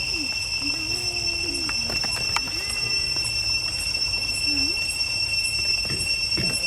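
A steady, high-pitched insect drone that holds the same pitch throughout, with a few faint low calls that slide up and down in pitch.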